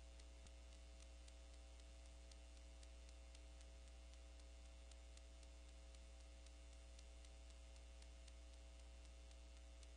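Near silence: a faint, steady electrical hum with light ticking over it.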